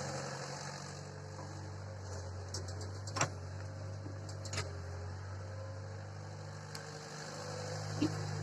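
Tractor engine running steadily with a low hum, with a few short clicks or knocks around the middle.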